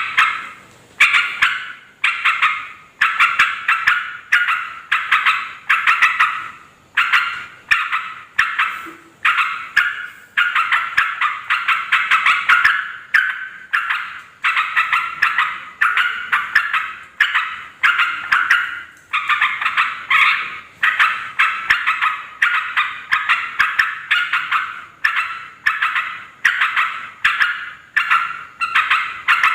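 Yellow-vented bulbul (trucukan) calling: loud chattering phrases of rapid notes, repeated about once a second, each starting loud and fading, with a few short breaks.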